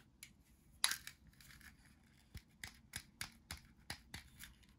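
Plastic toy fruit and vegetable pieces handled and knocked together: a louder clack with brief rustling about a second in, then a run of light sharp clicks, about four a second.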